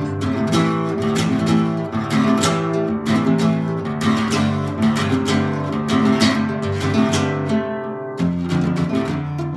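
Acoustic guitar strummed with a pick in a steady rhythm, the chords changing every second or two.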